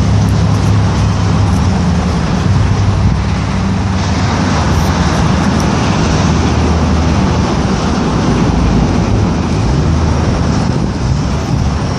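Engine of a Chevrolet hi-rail pickup truck idling steadily close by, a low even hum under a steady rushing noise.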